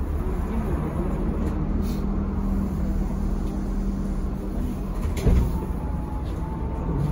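ZiU-682G trolleybus riding, heard from inside the passenger cabin: a steady low rumble with a hum that stops about five seconds in, then a single sharp knock and a faint whine.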